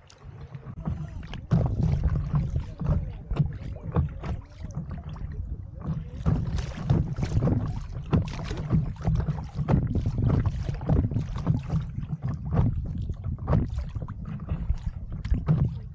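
Water splashing and slapping against a stand-up paddle board as it is paddled along, in irregular short splashes. A low rumble of wind on the microphone runs under it. It gets louder about a second and a half in.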